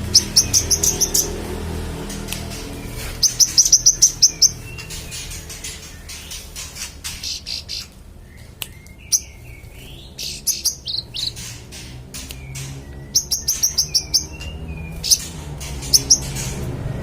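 A manggaran songbird singing in full voice: three bursts of rapid, evenly spaced high notes, about eight in a second and a half, near the start, about three seconds in and about thirteen seconds in. Shorter chirps and sliding calls fall between them.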